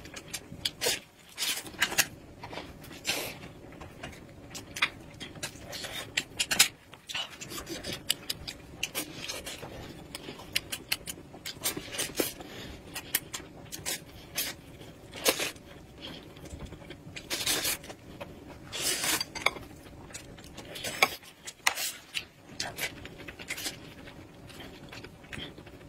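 Close-up eating sounds: a woman chewing a soft pancake wrap with meat filling, with irregular wet smacks and clicks of the lips and mouth throughout.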